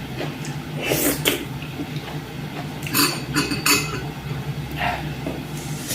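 A plate and utensils clinking and scraping during a meal eaten by hand: a light knock about a second in, then a quick run of three or four clinks around the middle. A steady low hum lies underneath.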